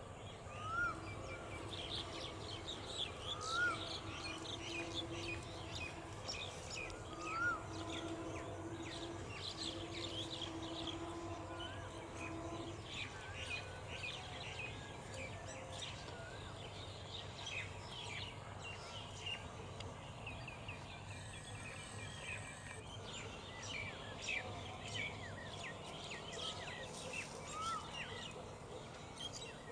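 Birds chirping in many short notes, with a clear rising-and-falling call repeated four times, over a faint steady hum.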